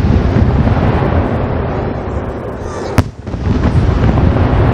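Aerial firework shells bursting overhead, a continuous low rumble of bursts with one sharp bang about three seconds in.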